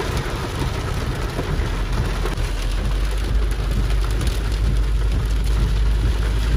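Heavy rain pattering hard on a car's roof and windshield, heard from inside the cabin of a slow-moving car. A deep low rumble runs under it and grows stronger about three seconds in.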